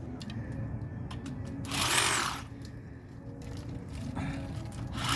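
Power trimmer motor running steadily while trimming a tree, surging louder twice: about two seconds in, and again near the end. During each surge a high whine rises and falls.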